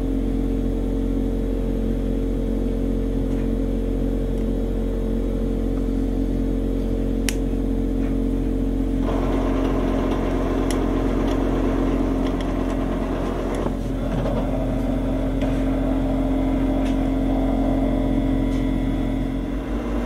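American Harvest 6039 corn stove running, its newly fitted blower and stirrer motors giving a steady hum over a low rumble. About nine seconds in, a rougher, busier noise joins the hum, with a sharp click or two.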